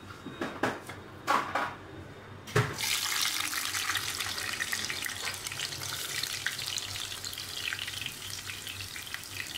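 Sliced onions dropped into hot oil in a frying pan, starting a steady sizzle about two and a half seconds in. Before that, a few short handling sounds as they are picked up off the plate.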